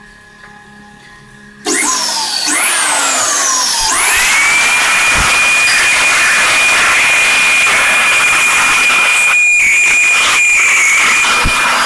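Vacuum cleaner switched on a little under two seconds in: its motor spins up with gliding whines, then settles into a loud, steady rush of air with one high whine. The noise dips briefly a couple of seconds before the end.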